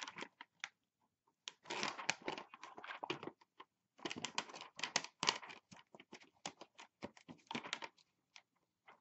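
Clear plastic packaging crinkling and crackling as it is pulled by hand and peeled off the glue that holds it to the box, in three bursts with short pauses between.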